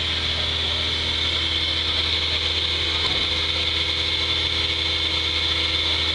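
Suzuki Samurai off-road truck's engine running steadily at low revs as it crawls up a steep dirt bank, with a steady higher whine over it.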